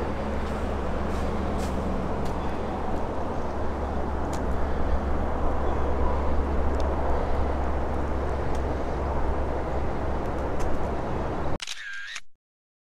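Steady outdoor rumble and hiss, heaviest at the low end, with a few faint clicks. Near the end a brief ringing camera-shutter-style sound effect plays, and then the sound cuts off to silence.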